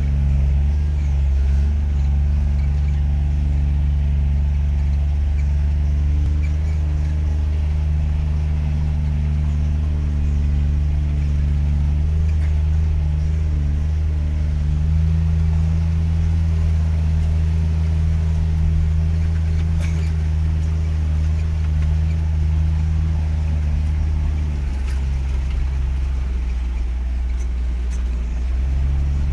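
Off-road vehicle's engine running steadily as it drives through deep mud ruts, heard from inside the cab. Its note rises a little about halfway through and drops near the end, with a few light knocks.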